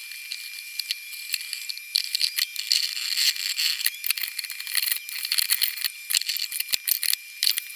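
Scrubbing a cast iron Dutch oven with Bar Keepers Friend powder in a stainless steel sink under the running tap: a gritty hiss of scrubbing and water, with frequent clicks and knocks of the pot against the sink, busier from about two seconds in. A thin steady high tone runs underneath.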